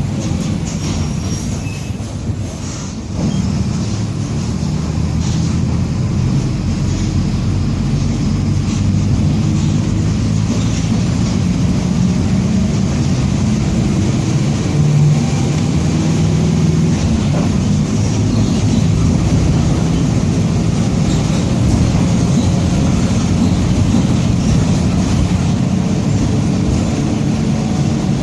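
Mercedes-Benz OF-1722M city bus under way: its diesel engine running, with the low drone of a growling differential and road rumble. The level dips briefly about two seconds in, picks up again about a second later and then holds steady.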